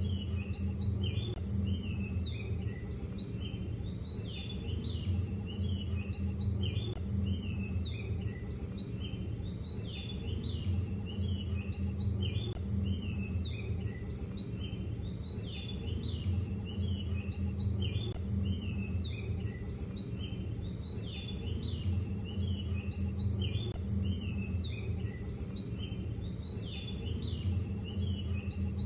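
Songbirds chirping and twittering continuously, many short repeated calls, over a steady low rumble.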